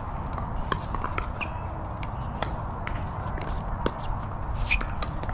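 Pickleball rally: the hollow plastic ball popping off paddles and bouncing on the hard court, sharp pops at uneven spacing about once a second or more, some with a brief ringing tail, over a steady low rumble.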